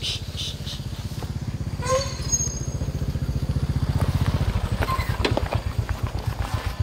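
Small engine idling nearby with a fast, even low throb that slows slightly partway through. A short high call cuts in about two seconds in.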